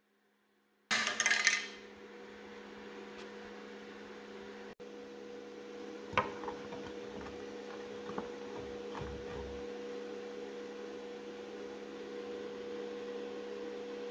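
A steady electrical hum with a few light knocks and clicks, after a short loud rustling burst about a second in.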